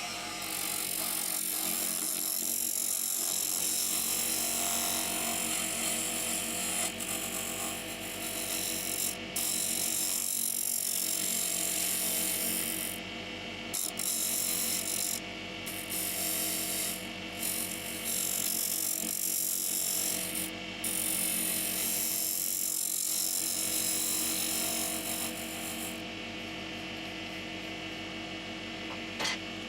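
Wood lathe running with sandpaper held against a spinning Leylandii trinket box: a steady motor hum under a hissing rasp of abrasive on wood. The hiss breaks off briefly several times and dies away near the end while the motor keeps humming.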